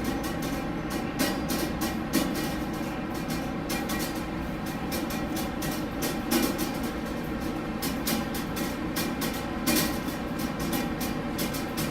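Steady ventilation (HVAC) drone with a low hum, broken by a few sharp, short knocks.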